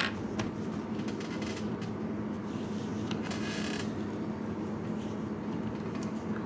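Steady low hum and hiss of background noise, with a sharp click at the start. Faint scratchy strokes of a felt-tip marker drawing on paper come around the middle.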